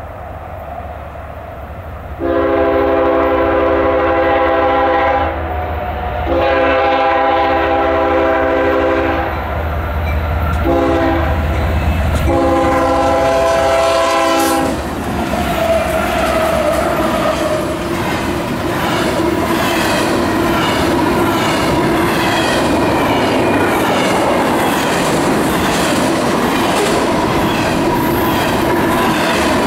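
A CSX diesel locomotive's multi-note air horn blows the grade-crossing signal of long, long, short, long as it approaches. The locomotive then passes close by and the double-stack intermodal cars roll past with steady wheel clatter and rumble.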